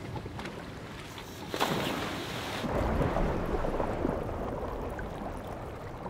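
Sea and wind ambience, then a diver in scuba gear jumping off a boat into the sea: a sudden splash about a second and a half in, followed by a long rush of bubbles heard underwater that slowly fades.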